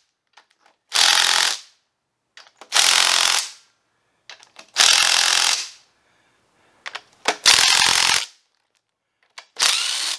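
Small cordless impact driver hammering on the cylinder-head bolts of a Ford Model T engine in five short bursts of about a second each, with faint clicks of the socket being fitted between them.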